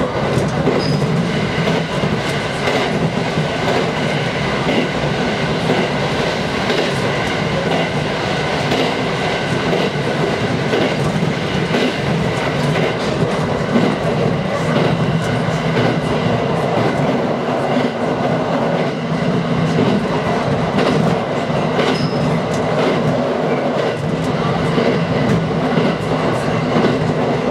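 Aoimori Railway 701 series electric multiple unit running at speed, heard from inside the rear cab: a steady noise of wheels on rails with occasional clicks.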